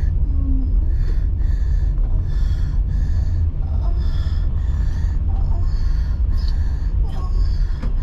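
A person breathing hard in rhythmic gasps, about one or two a second, over the steady low rumble of a car on the road.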